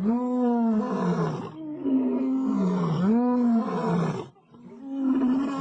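Lions roaring: a run of long, drawn-out roars one after another, with a short break about four and a half seconds in before the next begins.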